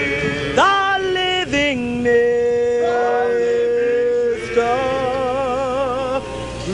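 A wordless sung chant: a voice slides up into long held notes, holds one steady for a couple of seconds, then sustains notes with a wavering vibrato.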